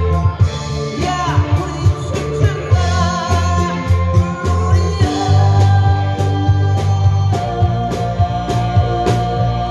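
Live rock band playing: a male lead vocal over electric guitars, bass and a drum kit keeping a steady beat.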